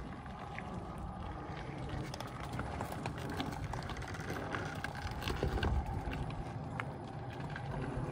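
Tesla Cybertruck tyres crunching and grinding slowly over rock and gravel as the truck crawls up a rock ledge, with scattered clicks of small stones under the tread over a low rumble.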